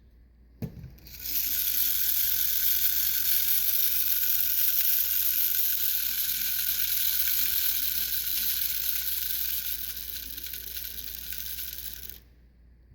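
Clockwork spring motor of a Marx wind-up tin locomotive running freely after being wound, a steady high-pitched whir of its gears, starting with a click as it is released. It slows and fades as the spring runs down, then stops.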